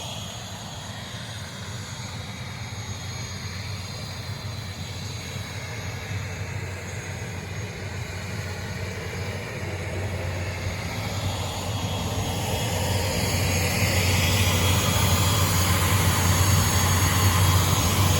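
Airliner engine running steadily on the apron, a low hum with a high whine over it, growing louder through the second half.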